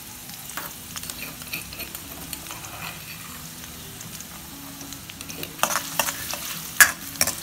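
Garlic cloves sizzling in hot oil with curry leaves and green chillies in a kadhai, frying for a tempering. From about five and a half seconds in, a steel ladle stirs them, with sharp clicks and scrapes against the pan.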